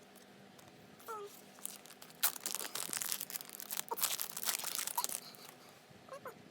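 Packaging being torn and crinkled in a rapid crackling flurry lasting about three seconds.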